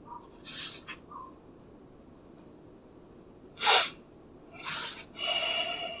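Graphite mechanical pencil scratching across paper in a few short, hissy strokes. The loudest and sharpest stroke comes a little past halfway, and a longer stroke runs near the end.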